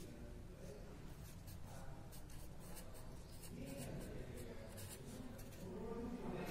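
Handwriting on paper: the writing tip scratching in short, irregular strokes, faint.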